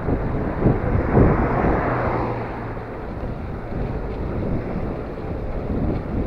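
Wind buffeting the microphone of a camera riding along on a moving bicycle, a low rumbling rush in uneven gusts. A louder swell builds about a second in and fades away by the middle.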